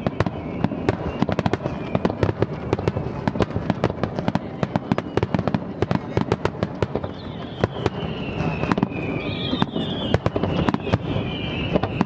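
A large fireworks display: dense, rapid popping and crackling with sharp bangs throughout. From about seven seconds in, a high wavering whistling sound joins.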